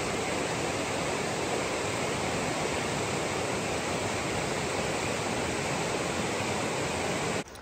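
Fast river rushing over rocky rapids, a steady white-water rush that cuts off abruptly near the end.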